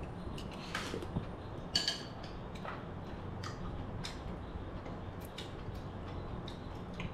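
Chopsticks and a metal spoon lightly clicking and scraping against a ceramic soup bowl, in scattered ticks with one brighter ringing clink about two seconds in. A low steady hum runs underneath.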